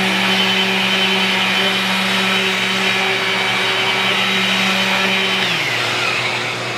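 Festool ETS random orbital sander running steadily on a plywood panel. About five and a half seconds in it is switched off and its pitch falls as it spins down, leaving a hiss that fades out.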